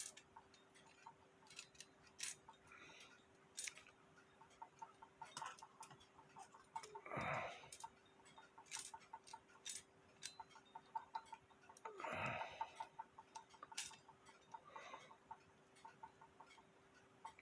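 Antique cuckoo clock movement running on a stand, its escapement ticking faintly and rapidly amid scattered irregular clicks, with two brief falling swishes. A bushing has come out, so the second wheel does not catch the escapement wheel properly.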